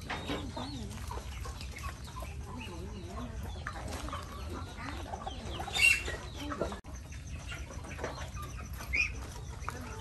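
Free-range chickens clucking, a stream of short calls, with one loud, high squawk about six seconds in.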